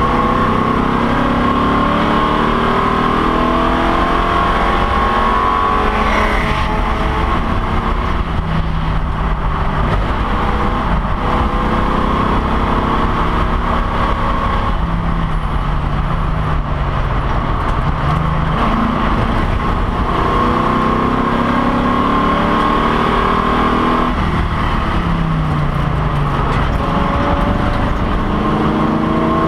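Race car engine heard from inside the cockpit, under hard driving: the revs climb and fall again and again as the driver shifts gears and lifts for corners, over a steady rumble of road and wind noise.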